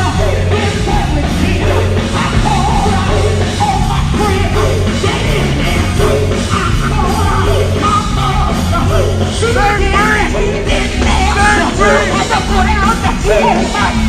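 Live gospel quartet music: a band with heavy bass and drums playing under singers' voices and shouted vocal ad-libs.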